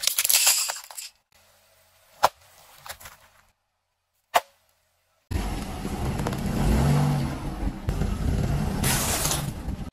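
Things crushed under a car tyre: a burst of cracking and splintering as a taped bundle of wooden coloured pencils gives way near the start, a single sharp pop a little over four seconds in, then a long steady noise with a strong low rumble through the second half.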